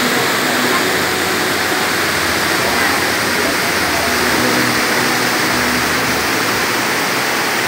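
Waterfall pouring, a loud, steady rushing noise with no breaks.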